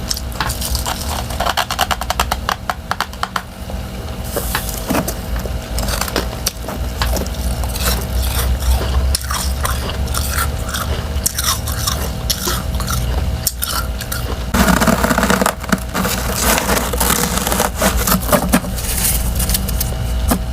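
Close-up crunching of freezer frost being bitten and chewed: thin refrozen ice chunks under a soft layer of powdery frost, with many small crackles and a louder burst of crunching about fifteen seconds in. A steady low hum runs underneath.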